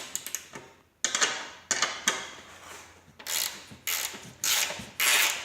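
Hand ratchet wrench clicking in short bursts of strokes as nuts are run down and tightened on bolts.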